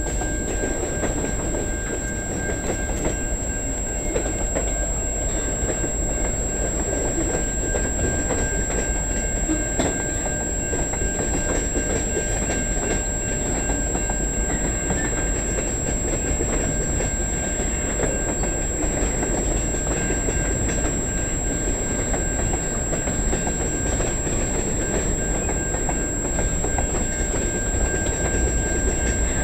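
Freight train cars (covered hoppers, tank cars and an autorack) rolling past close by: a steady noise of steel wheels on the rails, with many small clicks from the wheels over the track.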